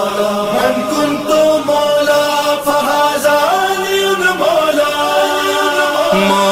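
Devotional chanted vocal music: sung voices holding long notes that slide from pitch to pitch, over a steady low drone that drops out midway and returns near the end.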